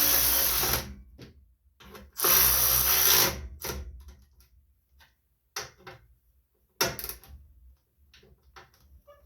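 Power driver with a 7/16 socket spinning the fuel-tank bolts down, in two runs of about a second each. Short metallic clicks and knocks of tools and parts follow.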